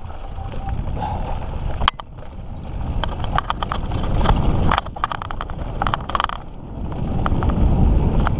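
Mountain bike being ridden over a dirt trail: a low rumble of tyres on the ground, with the bike rattling and clicking over bumps again and again.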